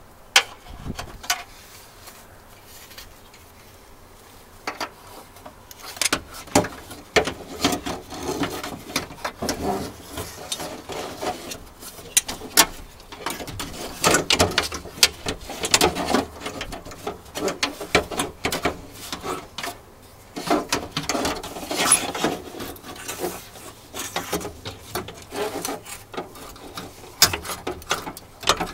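Metal and plastic clattering, knocking and scraping as a replacement window regulator and motor assembly is worked into a Nissan Frontier's steel door shell by hand. A few scattered knocks at first, then a busy run of irregular clicks and rubbing from about six seconds in.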